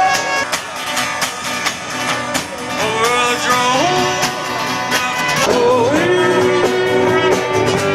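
Music: a singing voice with a gliding melody over a steady beat.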